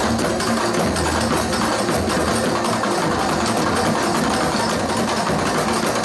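Live percussion ensemble of hand-held frame drums and drums playing a fast, busy rhythm.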